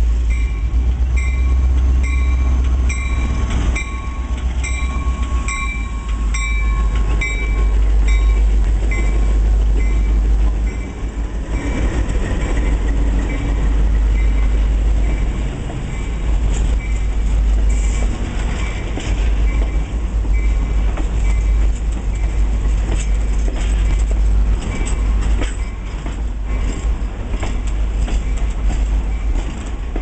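Diesel passenger train arriving slowly behind an F40FH locomotive, with its engine rumbling and its bell ringing in steady strokes. After about ten seconds the passenger cars roll past, their wheels clicking over the rail joints.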